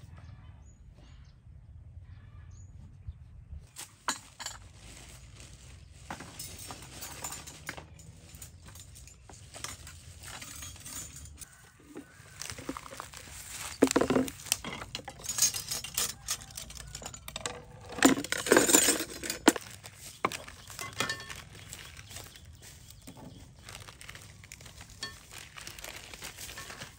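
Bottles, bowls and ingredients being set down and moved about on a wooden table: a run of clinks and knocks, with two louder bursts of clatter near the middle.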